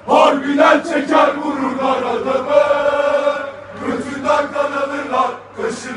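A group of football supporters chanting together in unison, mostly male voices, with one long held note about halfway through.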